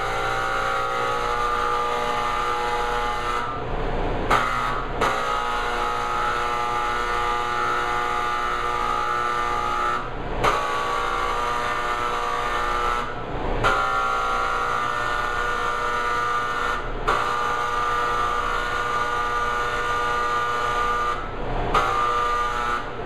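Handheld electric spray gun running with a steady hum and hiss as it sprays a white coating over small pastry pieces from all angles. It stops briefly five or six times and starts again each time.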